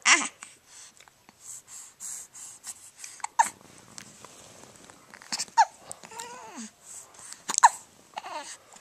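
Newborn baby hiccuping: four sharp, squeaky hics spaced irregularly a couple of seconds apart, with a small falling whimper after the third.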